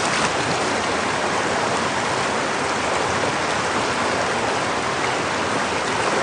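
Flowing water rushing steadily, a constant even hiss without breaks.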